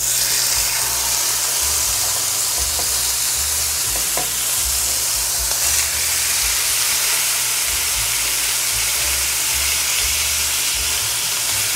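Two ribeye steaks searing in a smoking-hot cast iron pan with a little avocado oil: a dense, steady sizzle that starts abruptly as the first steak hits the pan and holds at full strength.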